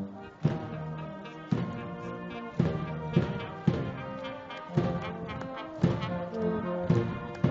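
Brass band playing a march, with sustained brass chords over a drum struck on the beat.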